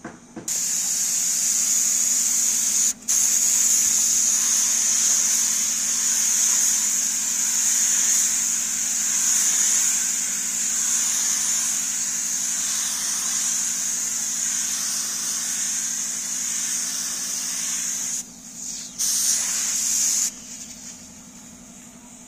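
Pneumatic gravity-feed spray gun hissing as compressed air sprays solid white paint onto a car door. The trigger is held almost throughout, with a short release about three seconds in and another break near the end before it stops. A low steady hum runs underneath.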